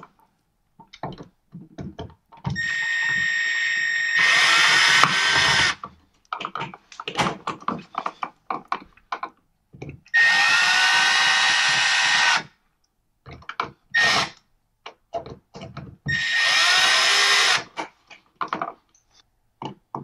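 Milwaukee cordless screwdriver driving an electrical outlet's mounting screws into its wall box. It makes three runs of two to three seconds each, the motor whine rising as it spins up. Small clicks and handling knocks come between the runs.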